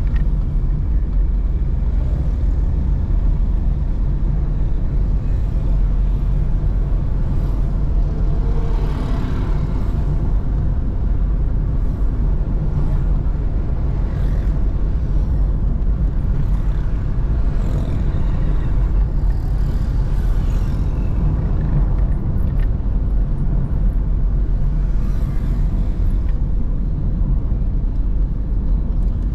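Steady low rumble of a car driving through city traffic, engine and tyre noise, with a few swells of louder noise as other traffic goes by, about nine seconds in, around eighteen to twenty seconds, and near twenty-five seconds.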